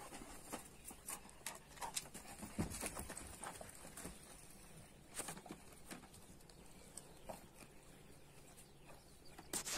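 Footsteps and scuffs on dry dirt from a person and a large dog walking, with scattered light clicks and knocks at an uneven pace, and a louder knock near the end.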